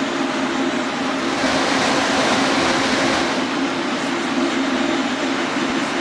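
Metro train running, heard from inside the car: a steady motor hum, with a rushing hiss that swells about a second in and fades about two seconds later.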